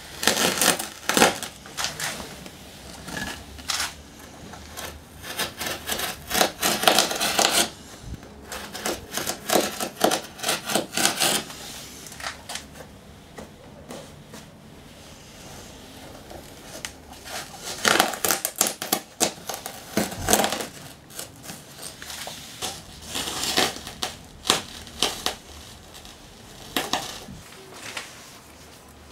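Crinkling and rustling of stiff fibreglass mat being handled and pressed onto a plywood canoe hull, in irregular bursts with quieter gaps between them.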